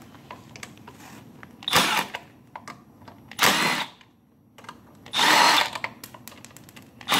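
Milwaukee M12 Fuel cordless impact wrench running in four short bursts, each under a second and about every one and a half to two seconds, backing out the 8mm bolts that hold a GY6 scooter's plastic cooling fan. Small clicks of the bolts and tool are heard between the bursts.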